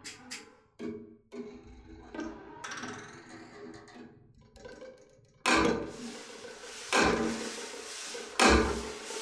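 Experimental music for prepared viola and prepared timpani: scattered sharp clicks and knocks, then three hard strikes about a second and a half apart, each followed by a noisy ringing decay.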